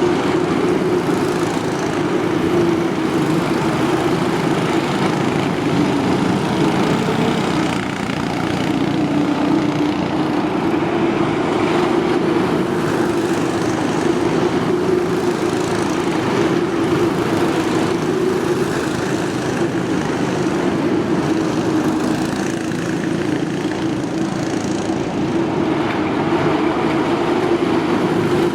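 Small single-cylinder cyclekart engines running steadily as the karts lap the yard, a continuous lawn-mower-like drone without breaks.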